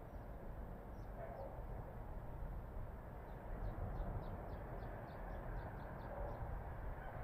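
A small bird gives a quick run of short, high chirps, about four a second, over a steady low rumble.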